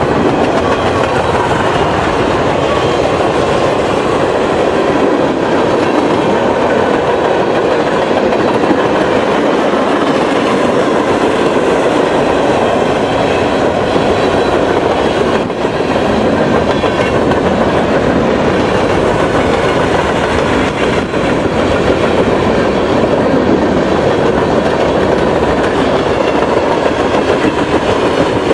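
Freight train cars rolling steadily past, their wheels clattering over the rails.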